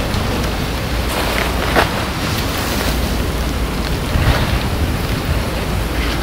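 Steady rushing noise of wind buffeting the microphone, with a couple of brief louder flurries.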